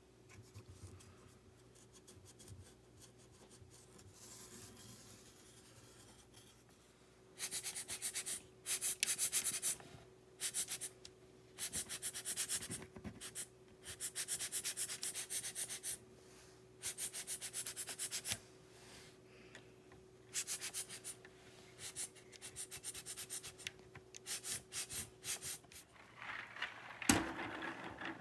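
Parts of an RK61 mechanical keyboard being scrubbed by hand. Faint rubbing at first, then from about a quarter of the way in, brisk scrubbing strokes come in spurts of one to two seconds with short pauses between them. A single knock comes near the end.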